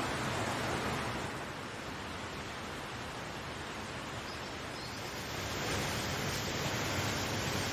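Waterfall: a steady rush of falling water that eases a little in the middle and swells again near the end.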